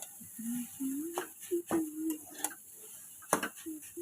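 Metal utensil clinking and scraping against a pan while chow mein is stir-fried, with a few sharp clinks and a light sizzle, and a few short low tones in between.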